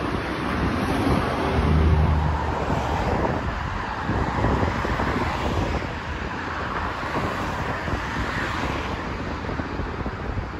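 Steady outdoor noise of street traffic mixed with wind buffeting the microphone, with a heavier low rumble about two seconds in.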